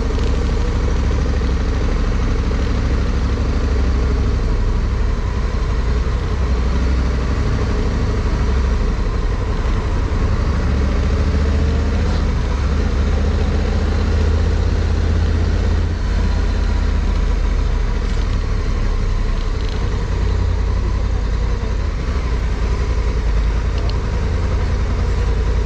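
Honda Africa Twin CRF1100L's parallel-twin engine running steadily at low speed, a constant low rumble with road noise over it.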